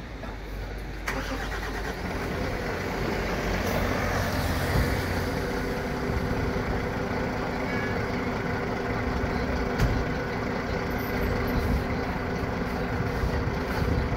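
A Volvo FL fire engine's diesel engine running steadily at idle. A cab door shuts with a sharp knock about ten seconds in.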